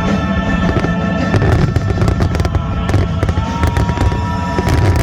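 Fireworks going off, many sharp cracks and bangs in quick succession.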